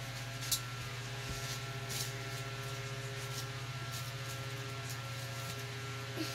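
Steady electrical mains hum with a low drone and thin steady overtones, and a few faint clicks.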